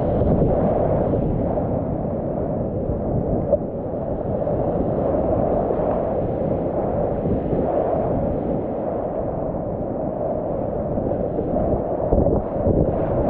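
Whitewater rapids rushing around a kayak as it runs down through them: a steady, muffled roar of churning water.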